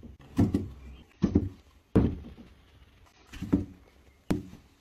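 Leather planners being set upright on a wooden shelf and pushed up against one another: five dull thuds at uneven intervals, the sharpest about two seconds in.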